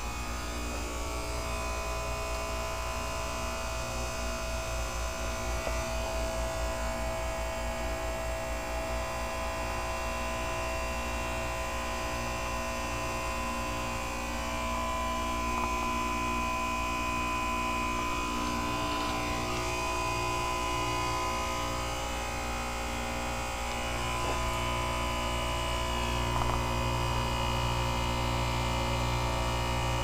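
2004 Goodman 10 SEER heat pump outdoor unit running in its defrost cycle: a steady electrical hum with several steady tones over it, growing a little louder about 24 seconds in.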